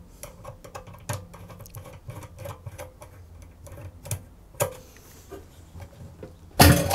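Screwdriver turning the screw of a worm-drive hose clamp (Jubilee clip) on a motorcycle fuel filter's pipe: a run of small light clicks, about three or four a second. A louder clatter comes near the end.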